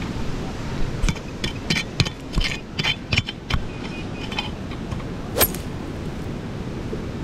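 Steel folding shovel's pick blade chopping and scraping into root-filled soil: a quick run of clinks and scrapes, then one sharper strike about five seconds in.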